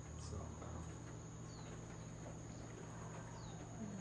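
Faint steady high trilling of insects, with a low steady hum underneath.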